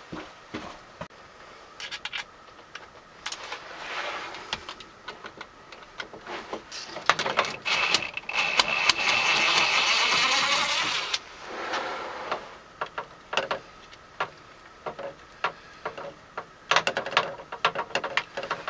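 Cordless drill motor running for about three and a half seconds a bit past the middle, its pitch wavering slightly, backing a stubborn stripped screw out with a screw extractor. Clicks and taps of tool handling before and after.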